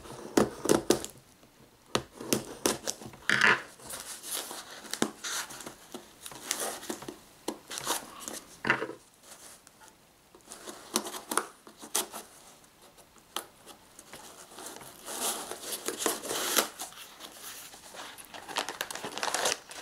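Small cardboard box being cut open with a small sharp tool: irregular scraping, slitting and tearing of tape and cardboard, with light taps and crinkling as the box is worked open.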